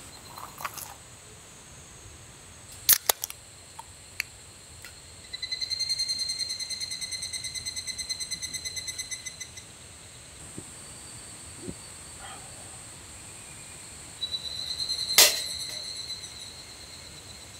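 Midsummer woodland ambience: a steady high-pitched drone, with a rapidly pulsing high call for about four seconds in the middle and again briefly near the end. Several sharp clicks, the loudest about fifteen seconds in.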